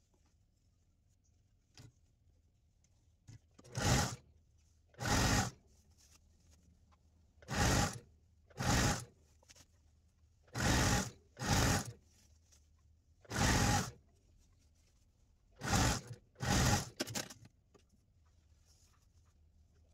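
Sewing machine stitching satin fabric in about nine short bursts, mostly in pairs, each under a second, with quiet pauses between them.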